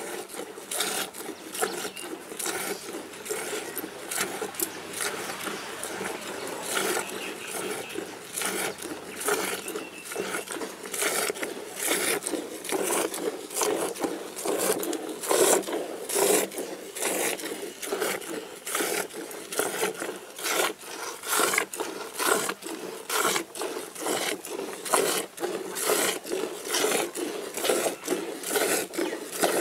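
Jets of milk squirting from a cow's teats into a steel pot of frothy milk as it is milked by hand, one squirt after another in a steady rhythm.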